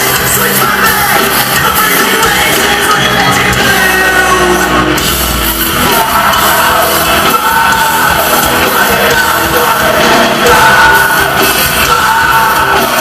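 Rock band playing live with a singer's vocals over the full band, loud and continuous.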